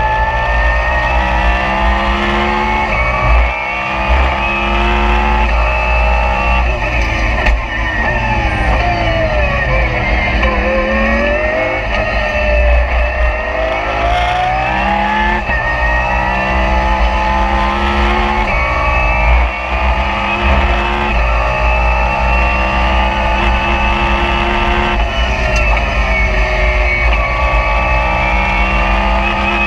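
Lamborghini Super Trofeo race car's V10 engine at full race pace, heard from inside the cockpit. The pitch climbs in steps as the car shifts up through the gears, falls away under braking and downshifts about eight seconds in, climbs again, and dips once more near the end.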